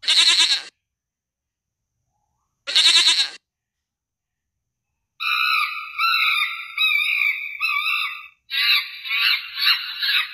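A goat bleating twice, two short calls a few seconds apart. Then, about five seconds in, a chimpanzee screaming in a run of high-pitched wavering calls that grow harsher near the end.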